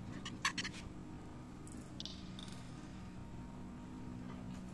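A few faint clicks of a metal spoon against a dinner plate while eating, most of them in the first second, over a steady low hum in the room.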